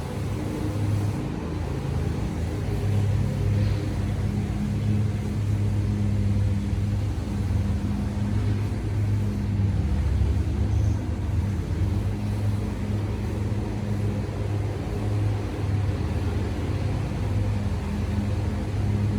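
Steady low mechanical hum with a rumble, as of a motor or engine running continuously.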